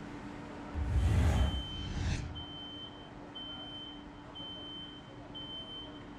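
Bakery production-room sound: a steady machine hum, a low rumble that swells twice about a second in, then a high electronic beep repeating about once a second.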